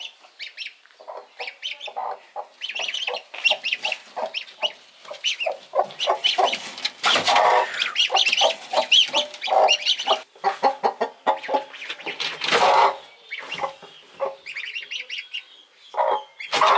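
Hen clucking in a rapid, near-continuous series of short calls, with two louder, harsher stretches about seven and twelve seconds in. These are the warning clucks of a broody hen guarding ducklings from a reaching hand.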